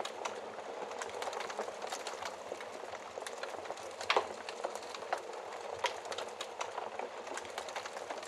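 Wood fire crackling steadily, with frequent sharp pops and snaps; the loudest pop comes about four seconds in.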